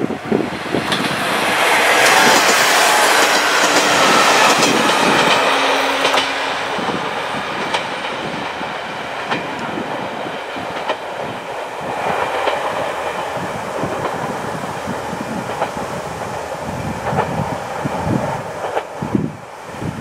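Diesel railcar train passing close by with its wheels clattering over the rail joints, loudest in the first few seconds. It then fades slowly as it pulls away, with evenly spaced knocks from the wheels on the joints and the engine running underneath.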